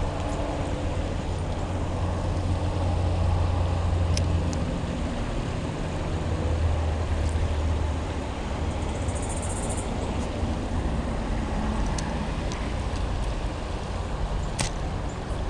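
Steady low engine rumble that swells and eases slightly, with a few faint clicks.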